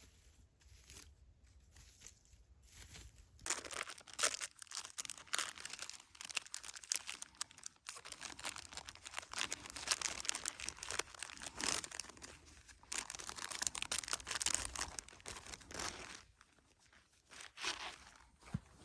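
Dry material crinkling and crunching: a few scattered soft crunches, then dense, continuous crackling from about three seconds in, dying down near the end.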